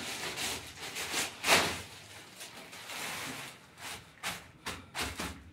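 Irregular knocks and rustling of things being handled, the loudest knock about one and a half seconds in.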